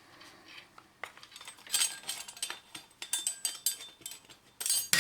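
Irregular clicks, clinks and rattles of small hard parts being handled, as a hard drive and its cables are worked loose from a satellite receiver; the loudest cluster comes near the end.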